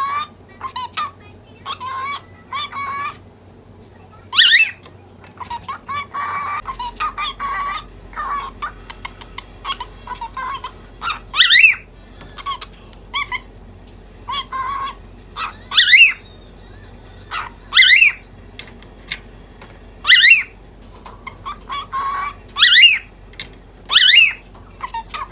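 Pet cockatiel chattering in short chirps, broken every few seconds by loud, sharp calls that sweep up and down in pitch; these come more often in the second half.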